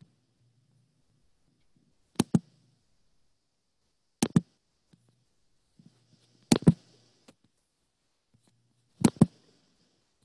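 Computer mouse clicking close to the microphone: four sharp double clicks about two seconds apart, with a faint low hum in between.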